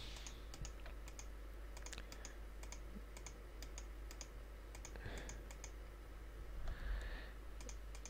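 Faint, scattered clicks of a computer mouse and keyboard, with a low steady hum underneath.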